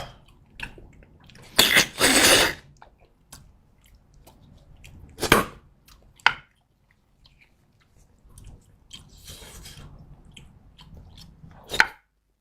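A person eating close to the microphone: quiet chewing broken by several loud, short slurps or sucking sounds, the longest about two seconds in.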